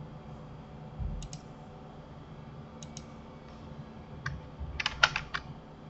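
Computer keyboard and mouse clicks: a pair of clicks about a second in, another pair near three seconds, then a quick run of several keystrokes near the end.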